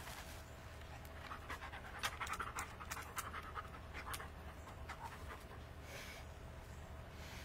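A dog panting in quick, rhythmic breaths, several a second, loudest about two to four seconds in.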